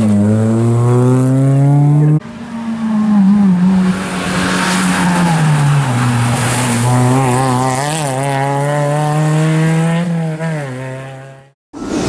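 Suzuki Swift rally car engines accelerating hard past. The first revs up and cuts off abruptly about two seconds in. The second climbs and drops in pitch through several gear changes, then fades away near the end.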